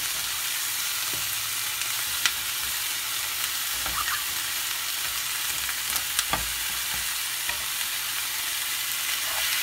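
Chopped onions, ginger and garlic sizzling steadily in hot oil in a non-stick frying pan, with a few light clicks as tomato pieces go in.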